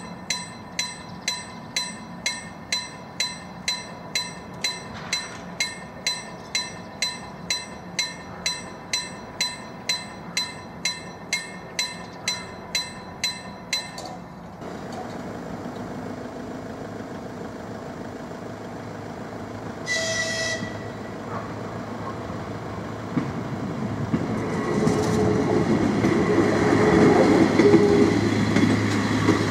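Level-crossing warning bell ringing about twice a second as the barriers come down, stopping about halfway through. A few seconds later a short train horn blast sounds, then a České dráhy class 814 Regionova diesel railcar approaches and passes over the crossing, growing louder near the end.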